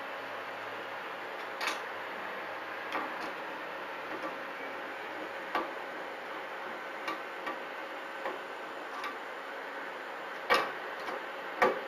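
Screwdriver working the screws that fasten a carry handle to a 3D printer's metal panel: about ten sharp, irregularly spaced clicks over a steady hiss, the two loudest near the end.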